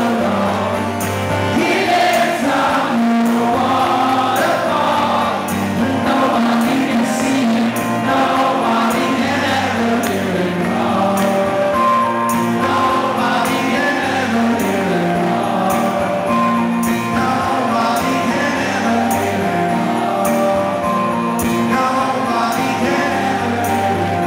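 Live rock band playing with drums, guitars and sung vocals, with regular drum and cymbal hits under sustained notes.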